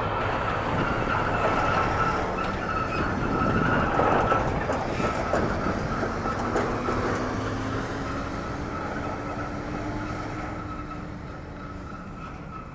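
Terra Gator 8103 self-propelled lime spreader running while spreading: a steady engine drone under a constant high whine, with a tone that slowly rises in pitch through the middle. The sound grows gradually fainter toward the end.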